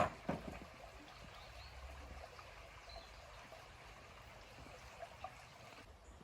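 River water running over stones, a steady even rush, with two sharp knocks at the very start.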